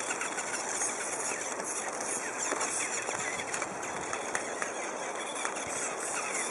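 Small electric gearmotors of a homemade RC car (two Tamiya 4-speed Power Gearbox HE units geared 74:1) running steadily as it drives over stones, with scattered crackles from the tyres on rock and grit.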